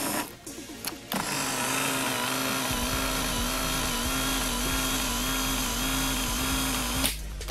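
Electric power seat motor running the seat track, worked from the seat switch: a few short jogs, then a steady whine for about six seconds that cuts off suddenly.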